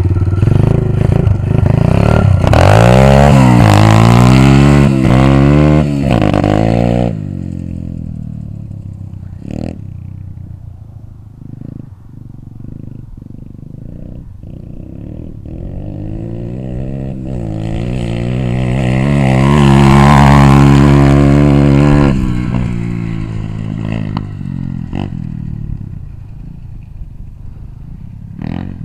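Xsport 125 pit bike's 125cc four-stroke single-cylinder engine revving hard as it pulls away, its pitch climbing and dropping through the gears, then fading with distance. About twenty seconds in it grows loud again as the bike comes back close, then fades once more.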